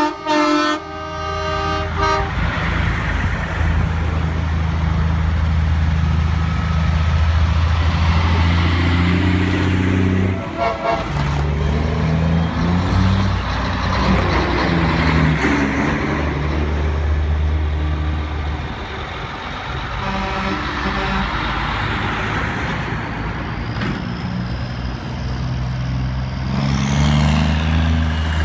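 Heavy diesel trucks in a parade passing one after another, their engines making a deep drone that swells and fades with each truck. An air horn blasts for about two seconds at the start, and a short horn toot sounds about ten seconds in.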